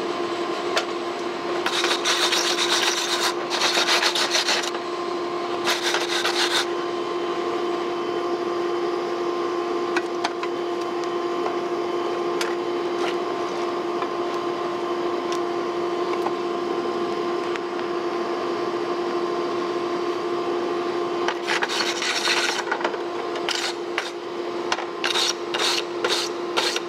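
The forge's air blower hums steadily at one pitch under a burning coal fire. Scraping bursts come a few seconds in and again past the twenty-second mark, and near the end the hot blade is scrubbed in quick rasping strokes, about three a second.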